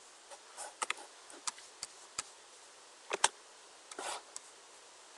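Scattered sharp computer mouse clicks, a dozen or so, with a quick double click about three seconds in and a brief rustle just after four seconds, over faint recording hiss.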